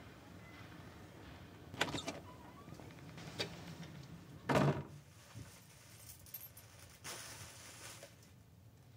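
Keys jangling and clicking in a front-door lock, then a door bumping shut about halfway through, and a faint rustle of plastic shopping bags near the end.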